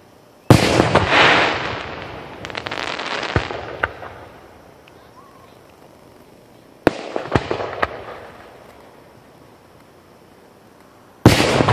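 Aerial firework shells bursting. A sharp bang comes about half a second in, followed by a long fading rumble and a run of crackling. A second bang with a few quick pops comes about seven seconds in, and a third bang near the end.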